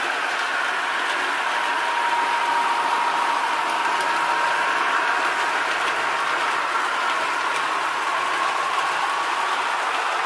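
ESU LokSound 5 sound decoders in HO-scale model trains playing recorded Japanese train running sounds through the models' small speakers: a KiHa 261 diesel railcar's engine running steadily, mixed with a series 285 electric train's sound. A steady whine sits under the engine and fades out about halfway through.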